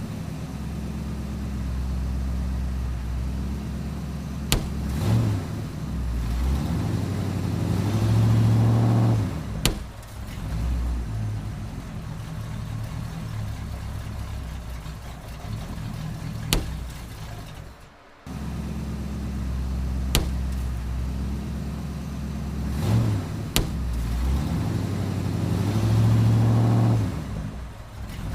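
Car engine running at low speed and revving up twice, with a few sharp pops scattered through: balloons bursting under the wheels.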